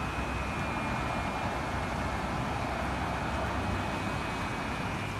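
Steady rain falling over a flooded street, an even wash of noise with a low rumble beneath it and a faint, steady high whine.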